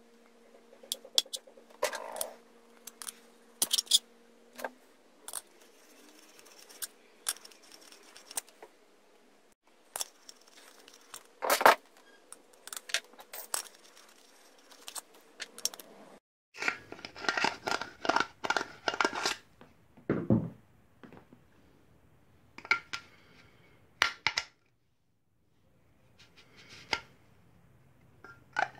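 Thin steel wall of a tin can being pierced with a pointed tool and nibbled open with pliers: irregular sharp metallic clicks and snaps, with a dense run of crinkly snipping about halfway through.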